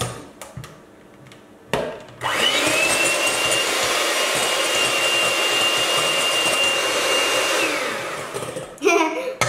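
Electric hand mixer whipping egg whites for meringue in a glass bowl: the motor starts about two seconds in with a quick rising whine, runs steadily with a high whine over the whirr of the beaters, and winds down near the end, followed by a few clinks.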